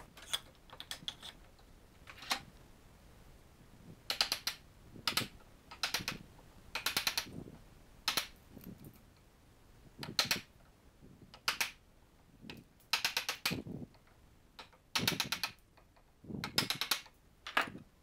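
A chisel being driven into the end grain of a wooden tenon to split waste off its cheeks: a string of sharp taps and cracks, alone or in quick clusters, about one a second and at uneven intervals.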